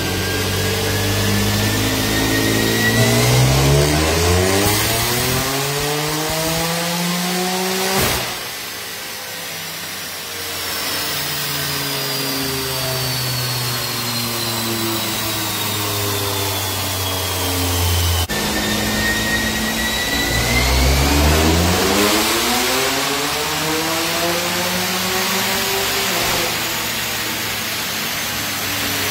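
BMW M4's twin-turbo straight-six, breathing through an aftermarket cat-back exhaust and downpipe, does two wide-open-throttle dyno pulls. Each time the engine note climbs steadily for several seconds, then winds down slowly with falling pitch. A sharp crack ends the first pull, and a thin high whine rises and falls along with the engine.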